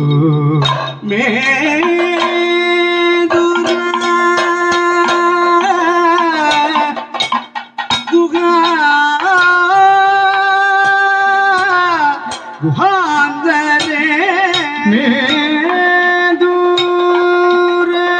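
Kathakali music: two male singers holding long, drawn-out sung notes, accompanied by chenda and maddalam drumming. The singing breaks off briefly twice between phrases.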